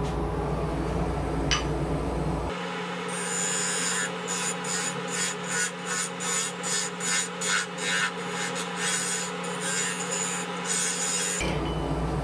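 Wood lathe running while a turning tool cuts into the spinning wooden blank, deepening the recess of a turkey pot call. From about two and a half seconds in the cutting starts, and from about four seconds in it becomes a rhythmic scraping at about two strokes a second, stopping a little before the end.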